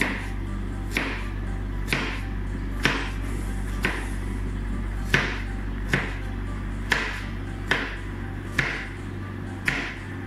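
Kitchen knife slicing a carrot on a plastic cutting board: the blade knocks against the board about once a second, with a steady low hum underneath.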